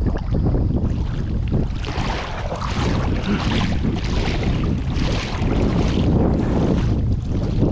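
Wind buffeting the microphone: a loud, steady rumble with several surges of rushing hiss about a second apart.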